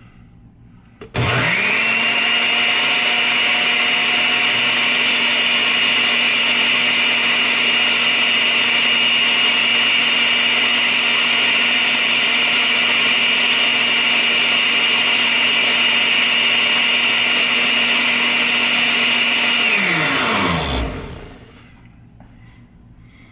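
Countertop blender switched on about a second in, its motor running with a steady high whine as it blends a liquid protein shake of water, Greek yogurt and protein powder. After about nineteen seconds it is switched off and spins down with a falling pitch.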